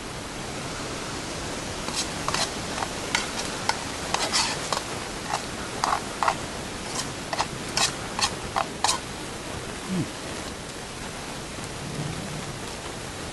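Metal spoon clinking and scraping against the inside of a stainless steel camping mug: a quick run of sharp taps, some ringing briefly, for several seconds, then stopping, over a steady hiss.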